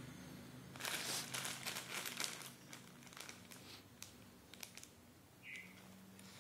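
Plastic instant-noodle packet (Indofood Soto Padang) crinkling as it is handled and turned over in the hand: a dense stretch of crackling from about a second in, then scattered crackles.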